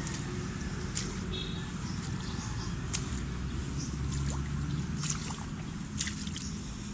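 Footsteps through wet mud and undergrowth: squelching steps and rustling, with a few sharp clicks.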